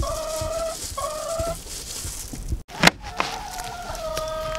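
Domestic hens making long, drawn-out calls on steady notes, three times. A single sharp knock a little past halfway.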